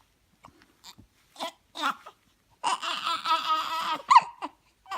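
Baby hiccupping, the hiccups short and squeaky like a toy: four brief ones in the first two seconds and a sharp rising one just after four seconds. Between them comes a longer, wavering voice sound lasting about a second and a half.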